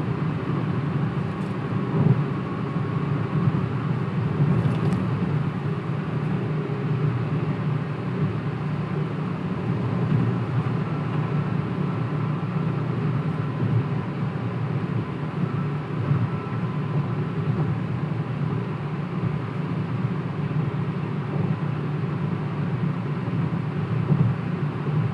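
Car driving through a road tunnel, heard from inside the cabin: a steady low rumble of tyres and engine.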